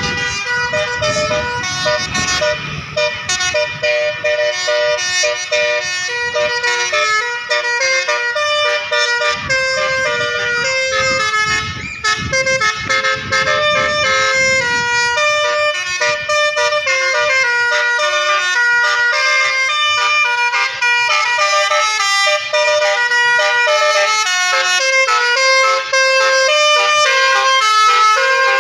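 Basuri telolet musical air horn on a bus playing a tune: a long run of horn notes stepping up and down in pitch. A low rumble sits under the horn for roughly the first half.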